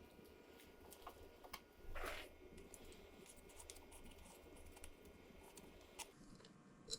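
Faint hand work on intake parts: scattered small clicks and ticks, a brief scrape about two seconds in, and a sharper click near the end.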